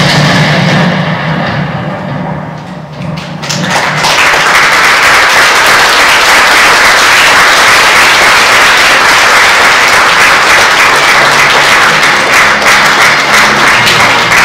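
A loud, low sound cue at the blackout, fading over about four seconds. Then a theatre audience applauding steadily at the end of the act.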